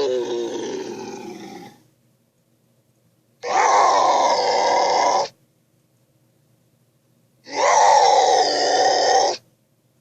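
Animated sharptooth dinosaur screech sound effect, played three times. Each screech lasts about two seconds, with short silences between. The first falls in pitch and fades away; the other two are harsh and hold steady before cutting off.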